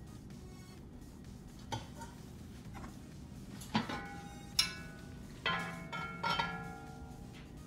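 Heavy lid of a black enamelled cast-iron pot clanking against the pot as it is worked loose and lifted off: about four sharp metallic clinks, each ringing on briefly. A lighter clink comes earlier, a little under two seconds in.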